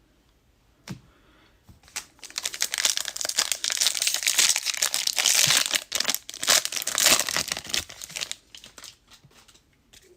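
Plastic foil wrapper of a 2021 Bowman Draft jumbo card pack being torn open and crinkled. A dense crackling starts about two seconds in, lasts about six seconds and thins out near the end.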